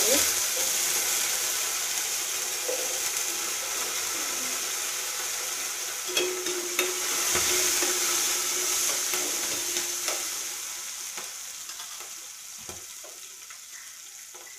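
Sliced garlic and cumin seeds sizzling in hot oil in a steel kadai. The sizzle starts loud and sudden as the garlic goes in, then slowly dies down over the last few seconds, with a few light clicks of stirring.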